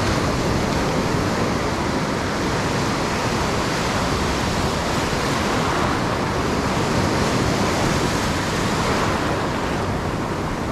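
Ocean surf breaking and washing through foamy shallows, a steady rushing noise that holds at an even level throughout.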